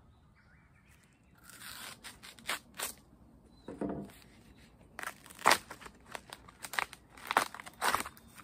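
Husk sheaths being torn and stripped off fresh bamboo shoots by hand: a run of sharp, irregular tearing and crackling strokes, starting about a second and a half in.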